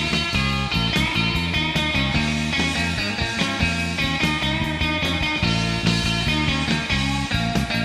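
Instrumental surf rock recorded on a demo cassette: electric guitar, bass and drums playing at a steady beat.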